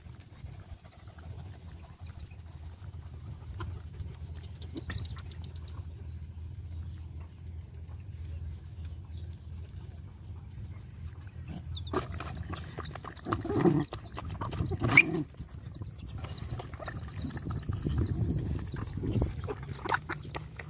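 Puppies nursing, with only a low steady rumble and a faint rapid high-pitched ticking, then, about twelve seconds in, dogs eating from bowls: louder irregular feeding noise with two sharp louder bursts.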